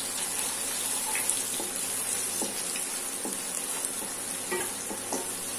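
Sliced shallots sizzling in hot oil in a non-stick pan, with a steady hiss and a few light knocks as a wooden spatula stirs them against the pan.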